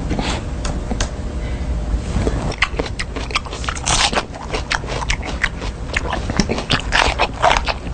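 A person biting and chewing crunchy food loudly and close up, with a rapid, irregular string of crunches that come thickest about a third of the way in and again near the end.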